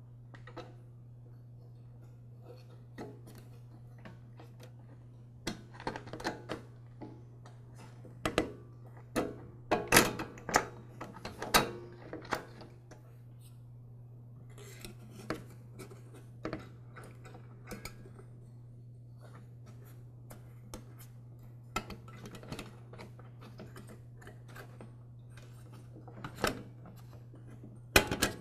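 Scattered clicks, clinks and knocks of small metal and plastic parts and tools being handled as an air filter base and gaskets are fitted onto a lawn mower carburetor, busiest about a third of the way through, over a steady low hum.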